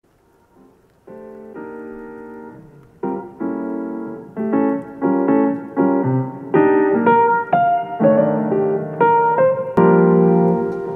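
Background music: mellow piano chords, starting about a second in and growing louder as new chords come in every half second or so.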